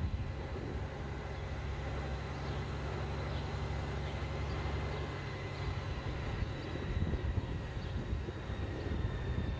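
A road vehicle on the move: a steady low engine and road drone, with a thin high whine that slowly drifts down in pitch.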